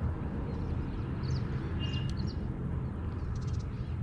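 Small birds chirping in short high calls several times, with a quick rattling call about three seconds in, over a steady low outdoor rumble.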